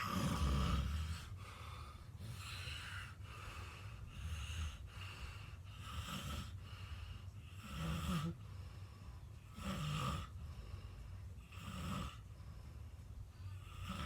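A person snoring in their sleep: a string of snores, loudest at the start and then about every two seconds in the second half, with fainter breaths in between.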